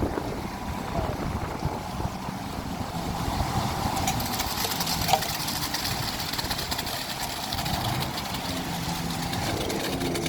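Construction-site machinery engine, such as a transit mixer's, running steadily with a rough low rumble. There is one short click about five seconds in.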